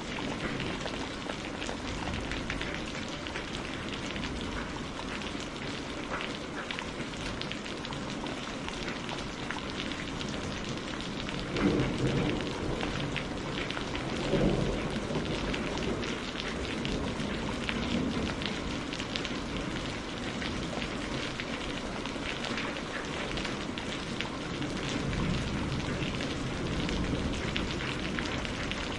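Steady rain falling, with two brief low rumbles a little before the middle.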